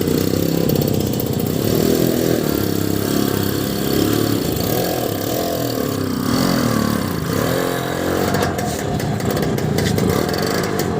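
Lambretta scooter's two-stroke single-cylinder engine running, its pitch rising and falling a few times as the revs change in the middle. A fast ticking joins in near the end.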